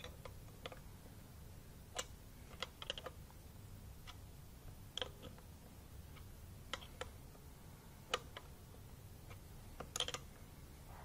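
Light, irregular metal clicks of a half-inch combination wrench being fitted onto a nut and turned in short strokes, a dozen or so in all, some in quick pairs.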